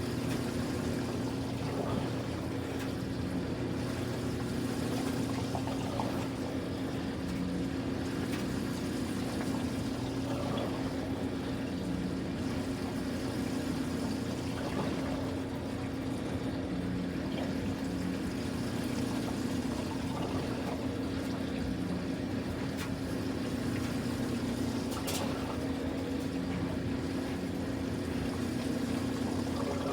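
Steady electric hum of a running laundry machine, with a faint pulse every few seconds and some water trickling.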